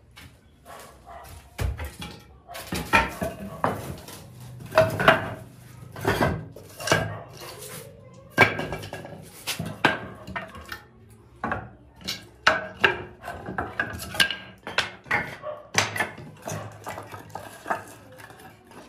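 Scrap wooden boards and frame pieces knocking and clattering together as they are picked up and stacked on a concrete floor, in irregular bursts of sharp knocks.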